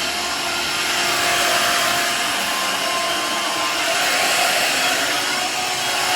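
Shark Navigator Freestyle SV1106 cordless stick vacuum running steadily, its motor making an even rushing sound with a faint high whine.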